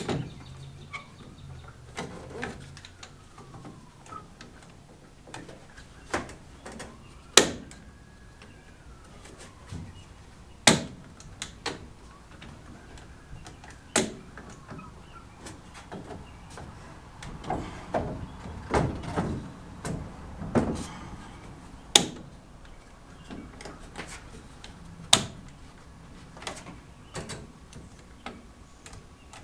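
Irregular sharp knocks and clacks of lumber and hardware being handled and fitted during a 2x4 rack build, about a dozen clear strikes with a busier run of small knocks in the middle.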